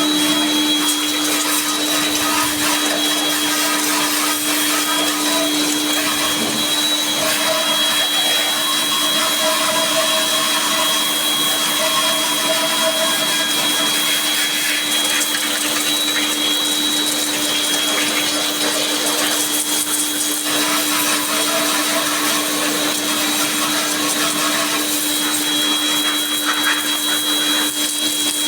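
Small electric motor running steadily with a constant high whine over a hiss, a cleaning machine at work.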